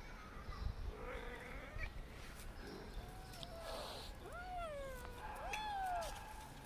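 Kittens meowing: about three clear calls that rise and fall in pitch in the second half, one of them long, with fainter calls before them.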